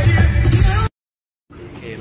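Acoustic guitar music with heavy bass played over a car audio system upgraded with Morel Elate Carbon 3-way speakers. The music cuts off abruptly just under a second in.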